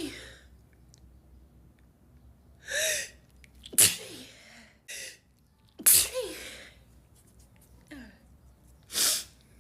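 A person sneezing: a drawn-out gasping in-breath, then a sharp sneeze about four seconds in, a second sneeze about six seconds in, and another gasping build-up near the end.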